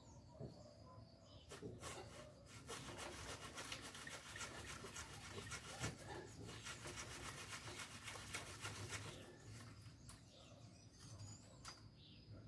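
A fast rasping, rubbing sound made of many quick strokes, starting a second or two in and stopping several seconds before the end.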